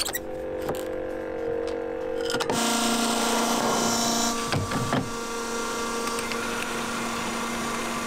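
Electric fuel transfer pump on a farm diesel tank switching on about two and a half seconds in and running with a steady motor hum and whine, with a few knocks as the fuel nozzle is handled.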